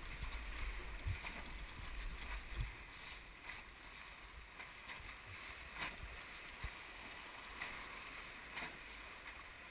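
Whitewater rapids rushing around an inflatable raft, with spray splashing and buffeting against the raft and camera. The buffeting is heaviest in the first three seconds, and a few sharp knocks come later.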